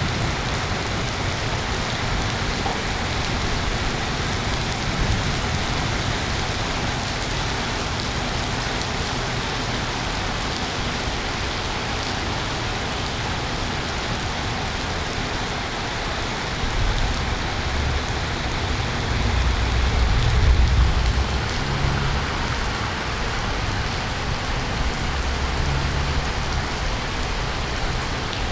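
Heavy rain falling steadily in a thunderstorm, a dense even hiss of drops on surfaces. A low rumble of thunder swells about two-thirds of the way through and rumbles again briefly near the end.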